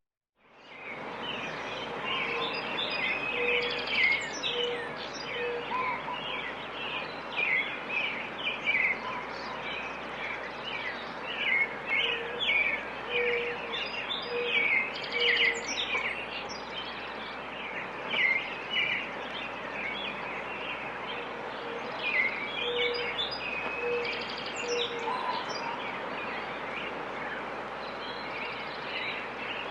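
Rural residential bird ambience: many small birds chirping and twittering over a steady background hiss, with a lower hooting call of three or four notes heard three times. It fades in at the start.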